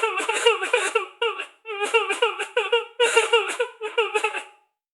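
A person crying, with a high voice sobbing in rapid short pulses and catching breath in a few brief pauses; the sobbing stops near the end.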